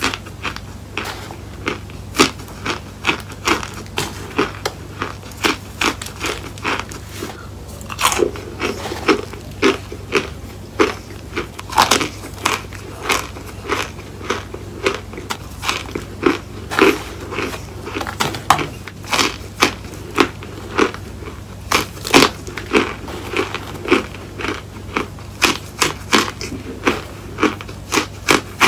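Biting and chewing of packed cornstarch chunks: a steady run of sharp, crumbly crunches, about two a second, over a faint low hum.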